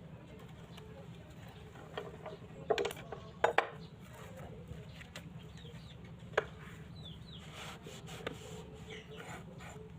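A few sharp clicks and knocks of tools or a workpiece being handled, the loudest pair about three and a half seconds in, over a steady low hum.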